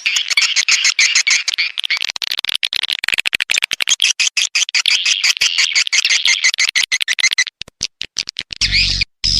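Recorded calls of edible-nest swiftlets used as a lure sound for swiftlet nest houses: a dense, rapid chatter of chirps and clicks. Near the end it breaks into a few separate short bursts with a low hum under them.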